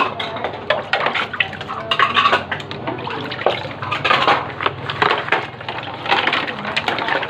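Dishes and cutlery clattering against each other many times in quick succession while being washed, with water running.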